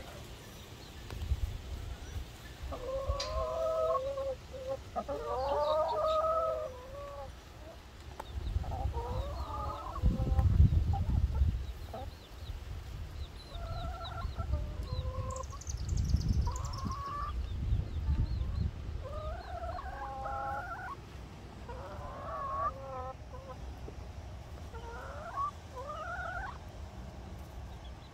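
Hens clucking and calling, strings of short wavering calls coming every few seconds throughout. Twice, for a couple of seconds, a low rumble rises beneath them and is louder than the calls.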